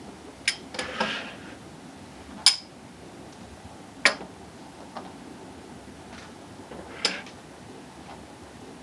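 Ceramic coffee cups and saucers clinking as they are set down on a wooden café table: about six sharp, separate clinks spread over several seconds.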